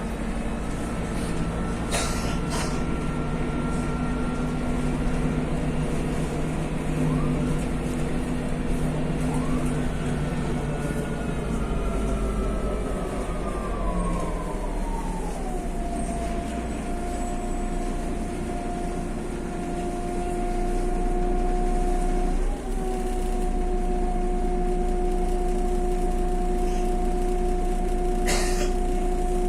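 Inside a MAZ city bus under way: the engine and drivetrain run steadily with a whine that slides down in pitch about halfway through and then holds at one note. A few sharp clicks come near the start and near the end.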